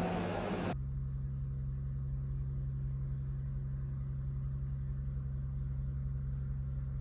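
Restaurant background noise for under a second, then a sudden cut to a steady low mechanical hum that holds unchanged.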